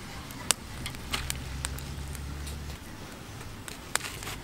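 Large knife cutting through a peeled jackfruit on a wooden chopping block: a few sharp knocks and clicks as the blade goes through the firm flesh and strikes the wood, one about half a second in and two near the end.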